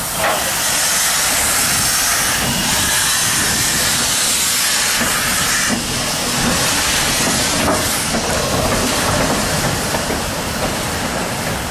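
Hunslet Austerity 0-6-0ST saddle tank locomotive moving off slowly, with steam hissing loudly and steadily from its open cylinder drain cocks as they clear condensed water from the cylinders.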